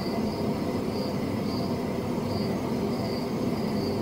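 Crickets chirping in even pulses, a little more than one a second, over a steady low rumble.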